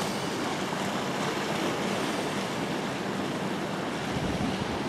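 Steady wash of the sea along a rocky shore, with wind on the microphone adding a low rumble near the end.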